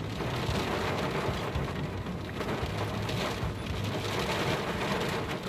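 Heavy rain hitting the roof and windshield of a car, heard from inside the cabin as a steady hiss, with a low steady hum underneath.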